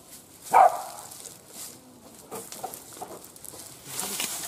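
A hunting dog barks once about half a second in, followed by faint rustling in dry leaves and bamboo litter.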